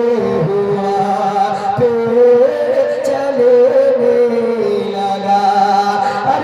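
A man singing a naat, a devotional Urdu poem, in long held melodic lines into a microphone.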